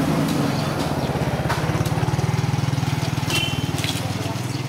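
A small engine idling with a fast, steady chug. A few short clicks and a brief high squeak sound above it.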